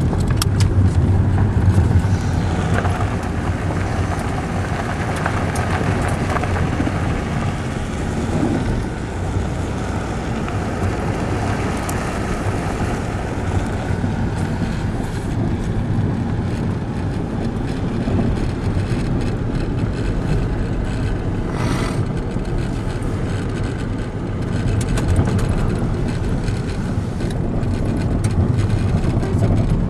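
Steady road and engine noise heard inside the cabin of a moving car, strongest low down.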